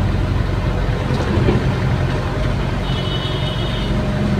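Excavator's diesel engine running steadily, heard from inside the cab while the boom and bucket work. A brief high-pitched tone lasts about a second, starting about three seconds in.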